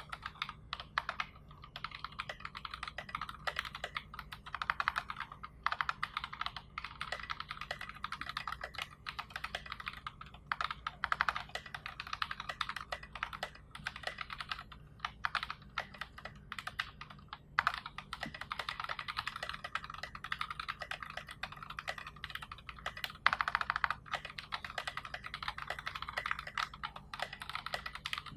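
Fast, continuous typing on a mechanical keyboard with Box Royal tactile switches, SA-profile keycaps and a 3 mm acrylic plate: a dense stream of key clacks broken by a few short pauses.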